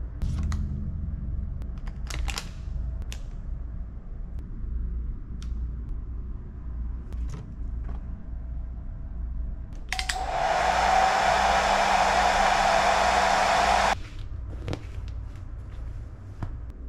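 A hair dryer switched on for about four seconds, a loud even rush of air over a steady motor whine, then switched off abruptly. Before it come a few light clicks and taps over a low steady hum.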